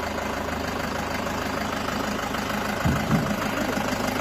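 Diesel engine of a medium four-wheel-drive tractor running slowly under light throttle as it is eased down a trailer ramp, with a brief louder surge about three seconds in.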